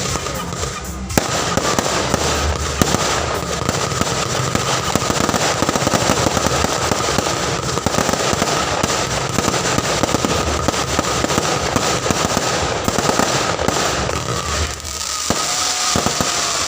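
Fireworks going off in a dense, continuous crackle of many rapid sharp pops, starting about a second in and thinning near the end.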